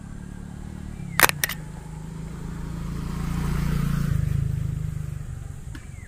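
A motor vehicle's engine passes close by, growing louder to a peak about four seconds in, dropping in pitch and then fading. A quick pair of sharp clicks comes about a second in.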